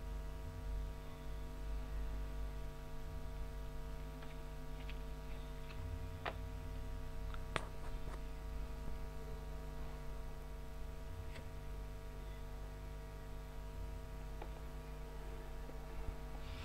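Steady electrical hum with a few scattered sharp clicks, the loudest about halfway through.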